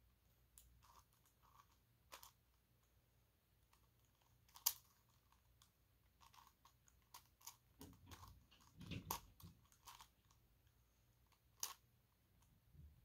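Plastic layers of a 5x5 dodecahedron twisty puzzle (a Gigaminx) clicking as they are turned by hand: faint, scattered clicks, with one sharp click about five seconds in and a busier run of turns between about six and ten seconds.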